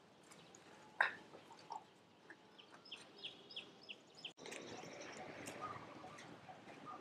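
Faint animal calls: a short sharp call about a second in, then a quick run of short high chirps, about three a second. A louder steady background hiss takes over after about four seconds.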